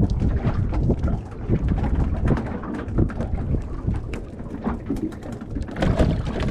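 Wind buffeting the microphone and water lapping against the hull of a small boat, with close crinkling and clicking from a plastic bag and a metal jig being handled.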